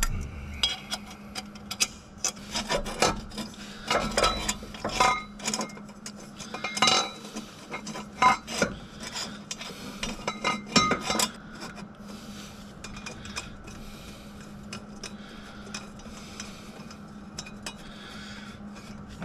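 Metal clinks, knocks and scraping as exhaust pipe sections are worked into place by hand, busy for the first half and dying down after about eleven seconds.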